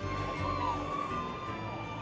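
Faint music mixed with the distant murmur and cheers of a crowd, steady and fairly quiet, with a low bass hum that drops away about a second in.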